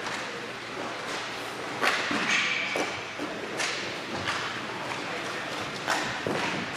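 Inline hockey play: sticks striking the puck and slapping the plastic sport-court floor, several sharp cracks a second or so apart, ringing in a large echoing hall.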